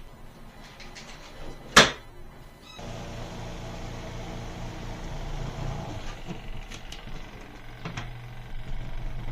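A sharp click, then about a second later the spin-dryer motor of a Giantex/Costway portable twin tub washing machine starts and runs with a steady hum, spinning a heavy load of clothes.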